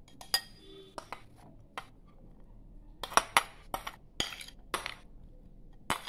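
A metal spoon clinking and scraping against a ceramic plate and bowl as chopped onion is pushed off the plate into the bowl: a series of sharp clinks, a few scattered at first and more of them from about three seconds in.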